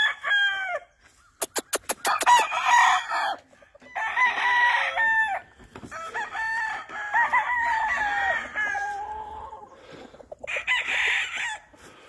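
Several gamefowl roosters crowing one after another, one crow longer and drawn out in the middle. A quick run of sharp clicks comes about a second and a half in.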